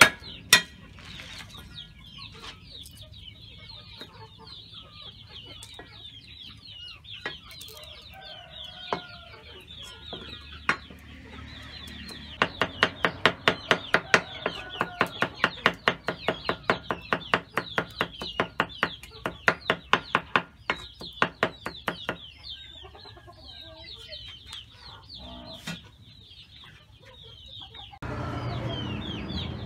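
Cleaver chopping garlic on a wooden chopping block: a few single knocks at first, then rapid, even chopping at about four strokes a second for roughly ten seconds. Chickens cluck in the background, and near the end a steadier low rush comes in.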